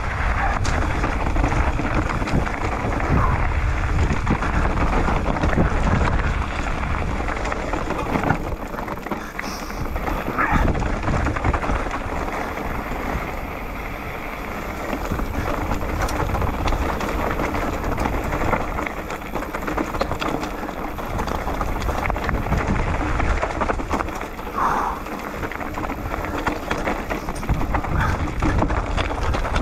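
Wind buffeting the microphone over the rumble and rattle of mountain-bike tyres rolling fast over dry, rocky singletrack. It runs steadily, easing a little in the middle.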